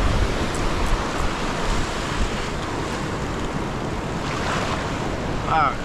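Surf breaking and washing up the beach, with wind rumbling on the microphone.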